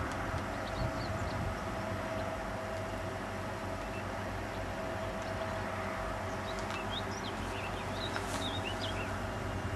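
BMW E38 740i V8 engine idling steadily, with no revving. Birds chirp several times over it in the second half.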